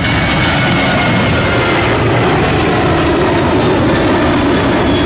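Loud, steady roaring noise that cuts in suddenly at full volume, with a faint high whine over it: an added vehicle sound effect.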